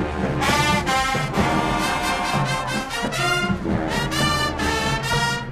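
Marching band brass section playing long held chords that shift every second or two.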